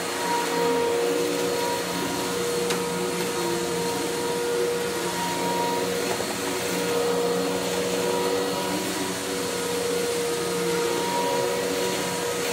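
Tornado CK14/1 upright vacuum cleaner running steadily as it is pushed over carpet, a continuous motor hum with a steady whine over a rushing of air.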